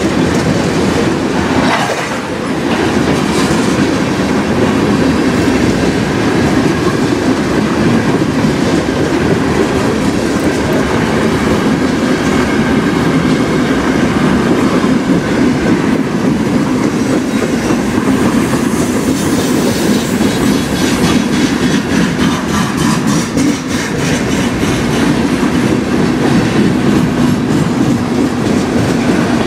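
Freight cars rolling past on steel rails: a steady noise of wheels on track, with quick even clicks of the wheels over rail joints, plainest in the later part.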